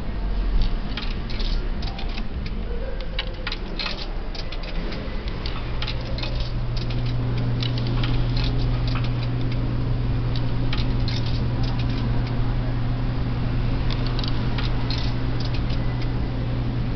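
Coins clicking and clinking as they are fed one after another into the coin slot of a Dixie Narco BevMax 4 drink vending machine, with a steady low electrical hum starting about five seconds in.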